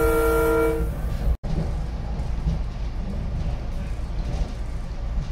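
Train horn holding a multi-note chord that ends about a second in, followed after a brief break by a steady low rumble.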